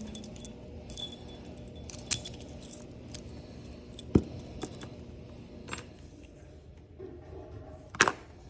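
Small metallic clicks and light jingling from lockpicking tools working an Abus padlock, with a few sharper clicks spread through, the loudest about four seconds in and near the end.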